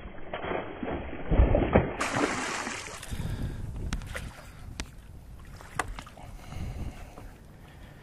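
Hooked bass thrashing and splashing at the surface beside the boat, loudest in the first two seconds, then quieter lapping water with a few sharp clicks as the landing net is worked.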